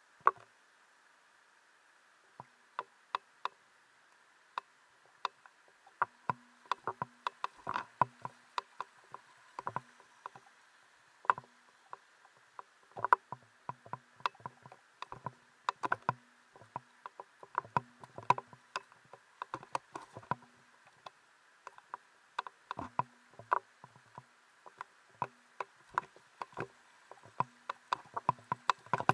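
Irregular sharp clicks and knocks, often several a second in clusters, of footsteps and gear on stream-bed rocks while picking a way up a shallow creek, over a steady faint hiss.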